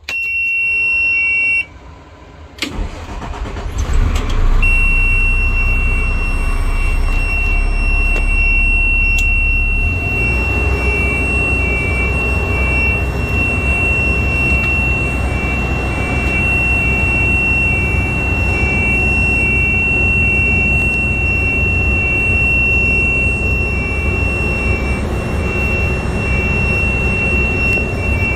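A high steady warning tone with a pulsing beep comes on as the dash switch is pressed. About two and a half seconds in, the fire truck's Cummins diesel engine cranks and starts, then settles into a steady idle, with the warning tone and beeping going on over it.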